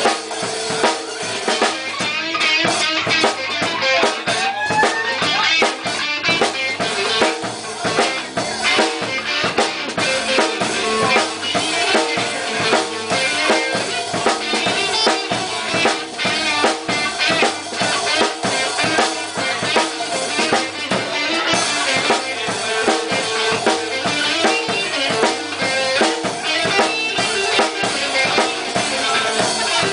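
Live blues band playing an instrumental break with no singing: a drum kit with snare and bass drum drives the beat under a lead instrument playing bending notes.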